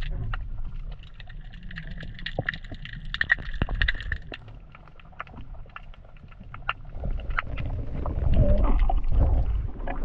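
Underwater sound picked up through a waterproof action-camera housing: a muffled, uneven water rumble with many scattered sharp clicks and crackles, swelling louder in the last few seconds.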